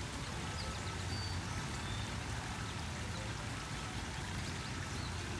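Water spraying up from the small holes around an inflatable splash pad's sides and pattering back down onto the pad, a steady splashing hiss with a low rumble underneath.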